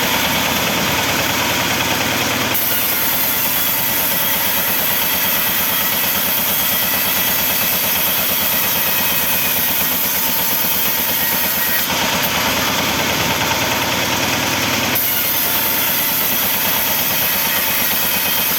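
Sawmill saw machinery running steadily with a regular low pulse. The sound turns harsher and brighter for about three seconds at the start and again about twelve seconds in.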